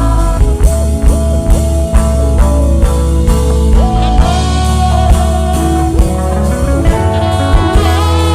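Instrumental break of a gospel worship song: a band plays with a lead guitar line and some sliding notes over a steady drum-kit beat, with no singing.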